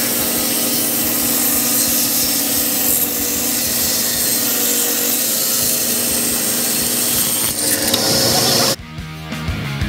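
Table saw ripping a thick wooden board: the blade's steady hum mixed with the rasp of cutting through the wood. It cuts off abruptly near the end.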